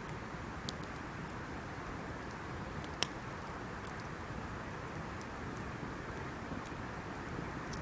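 Campfire burning with a steady hiss and scattered crackles, one sharp pop about three seconds in.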